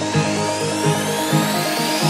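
Electronic dance music in a progressive house build-up: a pulsing synth chord pattern under rising sweeps that climb in pitch.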